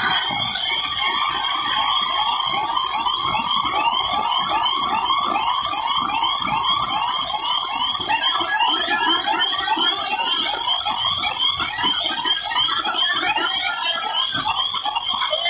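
Huge DJ sound-system speaker stacks blasting a rapidly repeating siren-like electronic sweep, each sweep rising in pitch, several a second, over low bass thuds. The sweeps grow more cluttered about halfway.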